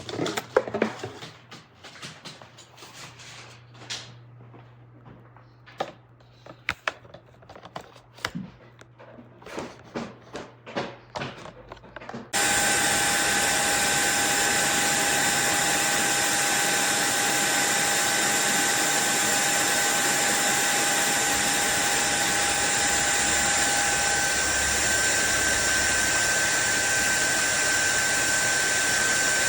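Scattered handling clicks and taps, then about twelve seconds in a SunSare cordless stick vacuum's motor switches on suddenly and runs steadily with a high whine.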